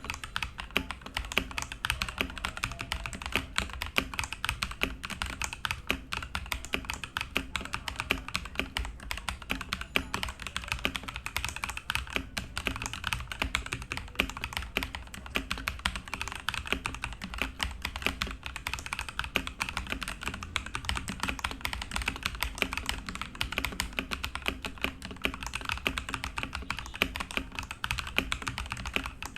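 Continuous fast typing on a Ganss GS3087T Li mechanical keyboard: a dense, irregular run of key clicks and clacks.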